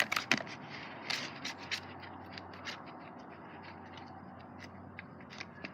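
Slime being mixed by hand in a bowl: irregular scraping and clicking of a utensil, most frequent in the first second or so, then sparser.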